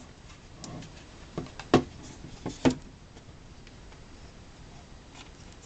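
A few short, sharp wooden clicks and knocks from a handmade wooden puzzle box being handled as its disc mechanism is turned, the two loudest about a second apart near the middle.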